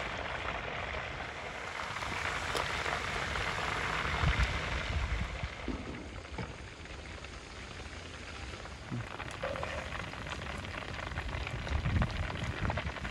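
Whole chickens deep-frying in a pot of hot oil: a dense, steady crackling sizzle, strongest in the first few seconds and then easing, with a few low knocks near the end.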